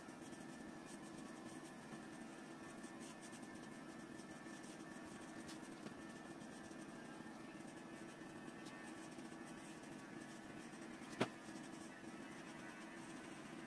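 Small electric dog-grooming clipper running steadily with a faint hum while trimming a poodle's coat, with one sharp click about eleven seconds in.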